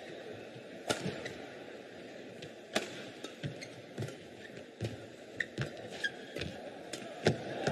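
Badminton rally: four sharp racket-on-shuttlecock hits about two seconds apart, with lighter thuds of footwork and short shoe squeaks on the court mat between them.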